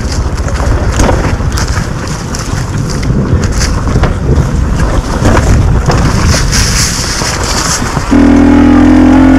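Dirt bike engine running at low revs on a rough downhill, with wind on the microphone and many short knocks from the bumpy ground. About eight seconds in, a louder, steady drone comes in and holds for just over a second.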